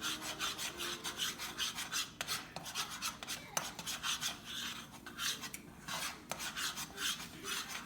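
A utensil scraping and stirring eggs in a pan as they scramble, in quick irregular strokes, several a second.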